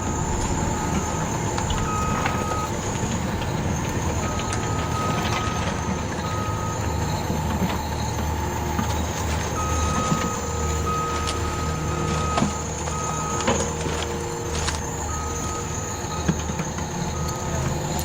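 Yigong YG28F remote-control bulldozer running: a low motor-and-gearbox hum with a thin high whine and scattered clicks, and a high electronic beep switching on and off in uneven stretches, like a reversing beeper.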